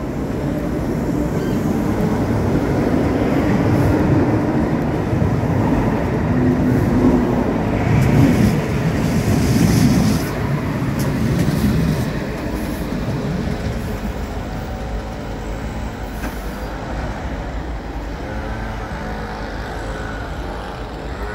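KVB Stadtbahn light-rail train pulling away from the platform and running past on the rails. Its motor and wheel noise builds to the loudest point about eight to ten seconds in, then fades as the train moves off.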